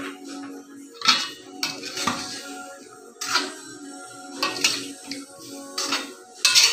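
Metal ladle stirring a watery curry in a stainless steel wok, scraping and clanking against the pan several times at irregular intervals, loudest about a second in and near the end.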